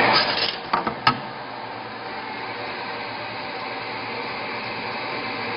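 Fiber laser marking machine running: a loud whir dies down in the first half second, two sharp clicks come about a second in, and then a steady, quieter mechanical whir.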